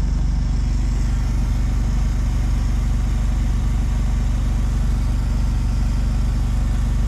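A vehicle engine idling steadily, holding a constant low pitch.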